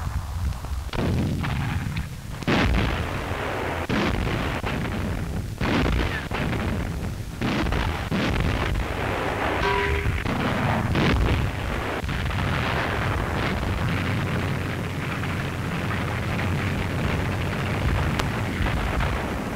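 Battle sound of gunfire and artillery explosions: a long irregular string of sharp shots and booms over a low rumble, on an old newsreel film soundtrack.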